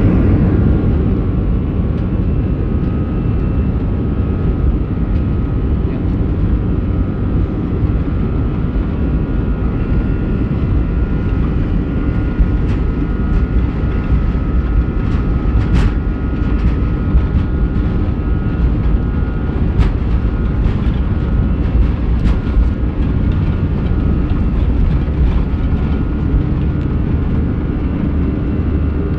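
Boeing 737 turbofan engines at takeoff thrust, heard inside the cabin during the takeoff roll: a loud, steady rumble with a high whine over it. A few sharp clicks cut through it partway along.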